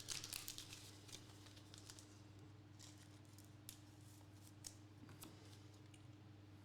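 Faint rustling and light clicking of trading cards and their plastic holders being handled, mostly in the first second or so and sparse after that, over a low steady electrical hum.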